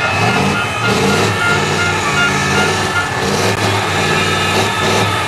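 Race truck's big diesel engine revving up and down during a smoky burnout, its pitch rising and falling every second or so.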